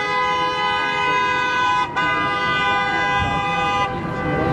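Vehicle horn honking in long, steady blasts, with brief breaks about two seconds in and again near the end.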